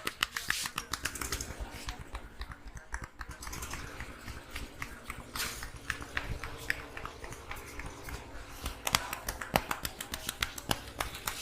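A barber's hands tapping and patting during an Indian head massage: a fast, irregular run of sharp slaps and clicks, several a second, with a few louder ones about nine seconds in.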